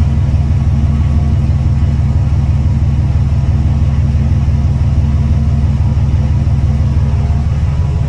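2003 Ford Mustang's 3.8-litre V6 idling steadily at the tailpipe, a low, even exhaust rumble through long-tube headers and a Mustang GT exhaust.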